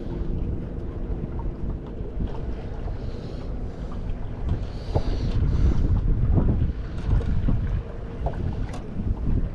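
Wind buffeting the microphone out on a fishing boat, a rumbling, uneven noise. A faint steady hum shows in the first few seconds, and a few light knocks come around the middle.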